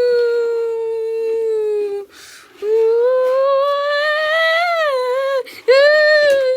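A high voice humming in three long held notes that drift and bend gently in pitch, with short breaks about two seconds in and near the end.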